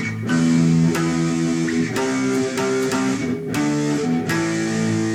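Guitar playing the song's intro riff: a run of power chords struck about once or twice a second and left ringing, shifting position along the neck.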